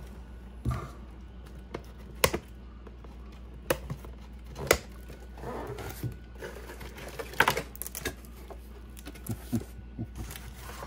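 Cardboard packaging being handled: irregular knocks, taps and scrapes as the box lid and insert are moved, with brief rustling of plastic wrap.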